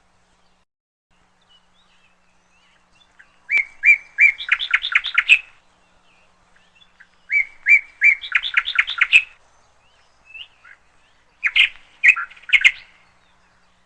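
Bird song: three chirping phrases a few seconds apart, each a quick run of notes.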